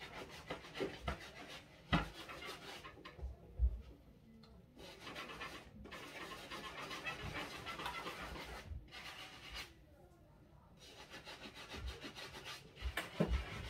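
Soft-bristle brush scrubbing the knit upper of an Adidas Yeezy Boost 350 V2 sneaker in runs of quick back-and-forth strokes, with short pauses between runs and an occasional knock of the shoe or brush.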